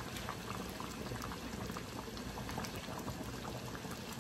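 Pot of food boiling on a hot stove: a steady bubbling dotted with many small pops.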